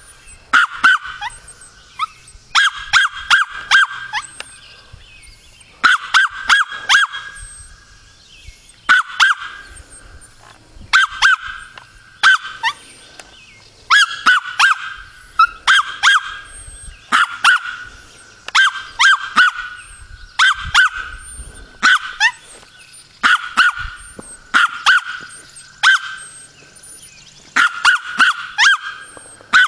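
Small dog barking over and over behind a chain-link fence, in high-pitched volleys of several quick barks with short pauses of a second or two between them.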